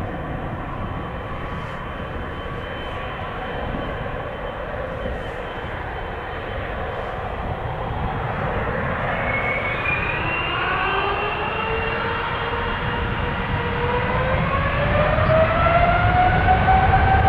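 Boeing 777F freighter's twin GE90 turbofan engines running at low taxi power, then spooling up for take-off. From about halfway through, a whine rises steadily in pitch and the engines grow louder.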